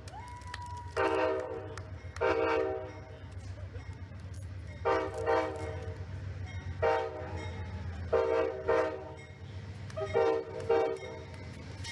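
Amtrak locomotive air horn sounded in a horn show: about ten short chord blasts, several in quick pairs, over a steady low rumble from the train.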